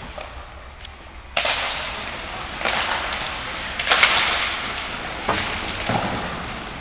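Ice hockey play: skate blades scraping and hissing on the ice, coming in suddenly about a second and a half in, with several sharp clacks of sticks and puck. The loudest clack comes about four seconds in.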